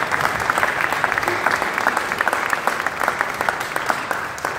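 Audience applauding, many people clapping steadily; the applause begins to fade near the end.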